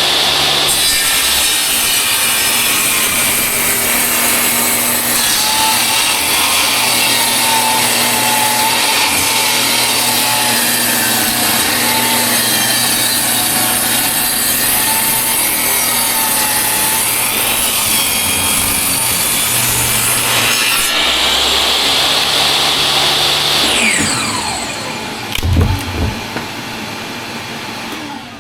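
Power saw cutting through wood for about twenty seconds, with a wavering whine as the blade works through the cut. Near the end the saw winds down with a falling whine, followed by a couple of thumps.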